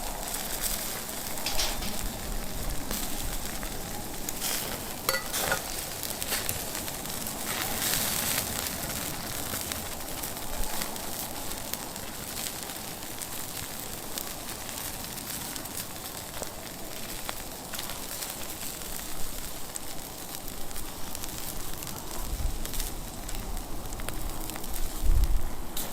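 Wood fire burning in a fire pit, with a steady hiss and scattered sharp crackles and pops. A dull low thump comes near the end.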